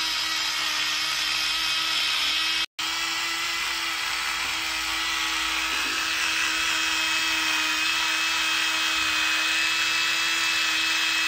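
Round-headed electric toothbrush running while brushing teeth in the mouth: a steady motor hum, broken once by a very short cut to silence about two and a half seconds in.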